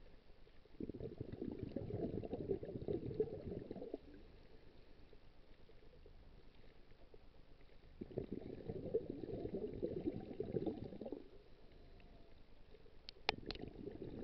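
Scuba regulator exhaust bubbles heard underwater: three long bubbling bursts, one about a second in, one around eight seconds in and one near the end, with quieter gaps between breaths. Three sharp clicks come just before the last burst.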